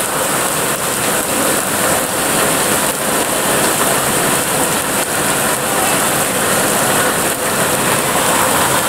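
Steady downpour of rain, with a stream of runoff water pouring from above.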